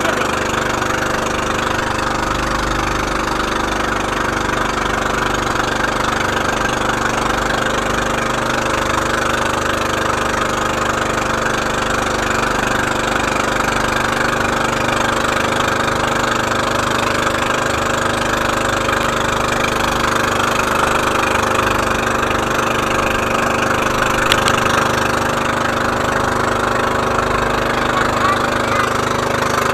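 Engine of a motorised outrigger boat (bangka) running steadily at a constant speed while the boat is under way.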